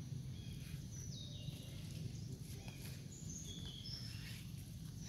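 Steady low outdoor rumble with a few short, high-pitched, falling animal calls over it, about a second in and again around three seconds in.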